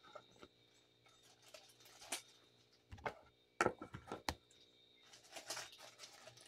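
Small packaged items being handled and set down on a table: a few light knocks and clicks, most of them close together around three and a half to four and a half seconds in, and a soft rustle near the end.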